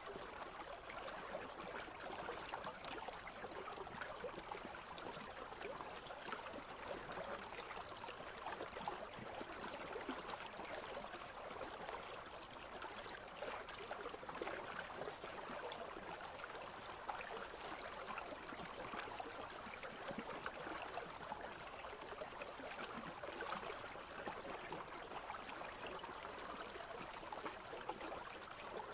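Country stream babbling steadily, a continuous fine trickling and gurgling of shallow running water.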